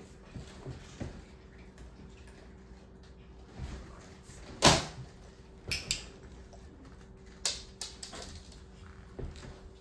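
A round woven mat tossed down lands on a laminate floor with one sharp slap a little before halfway through, followed by a few lighter clicks and taps.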